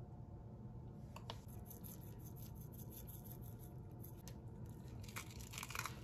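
Dry granola and hemp seeds being sprinkled by hand over a yogurt bowl: a run of fine crackly rustling that starts about a second in and grows denser and louder near the end.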